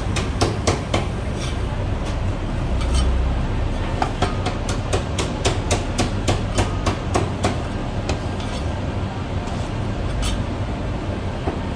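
Chinese cleaver chopping marinated cuttlefish on a thick wooden chopping block: sharp knocks in quick runs of several a second, over a steady low rumble.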